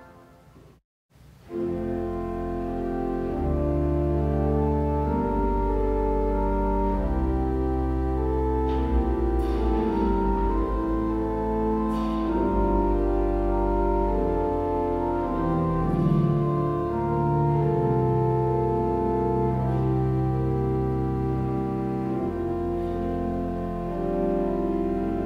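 Church organ: the tail of a held chord dies away and the sound drops out for a moment. About a second and a half in, the organ starts again, playing sustained chords over low bass notes at a steady level.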